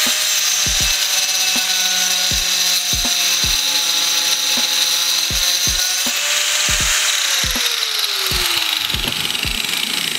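Angle grinder with a 115 mm tungsten-carbide-grit wood-cutting disc running and cutting through a board of lapacho hardwood, with a loud, steady high hiss. The motor's pitch drops from about seven to nine seconds in.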